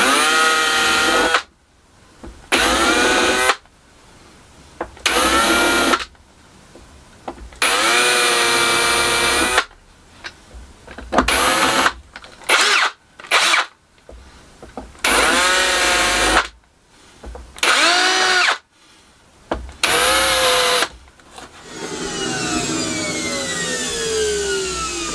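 Ryobi cordless drill drilling holes in a clear perspex router base plate, run in about ten short bursts of a second or so, each opening with a rising whine. Near the end a steadier noise with a slowly falling whine takes over.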